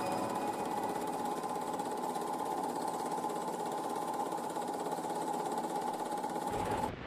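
Steady, fast mechanical whirring clatter with a constant hum, running evenly and cutting off abruptly near the end.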